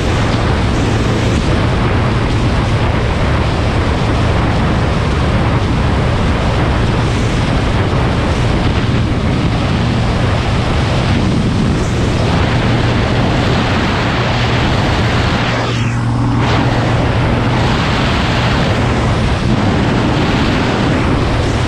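SMC Barossa 250 quad's 250 cc twin-cylinder engine running steadily at cruising speed, with wind rushing over the microphone. The sound eases briefly about three-quarters of the way through, then carries on.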